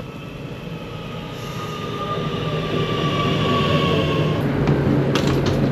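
Electric train approaching and getting steadily louder, with a low rumble and a high whine that falls slightly in pitch. A few clicks near the end.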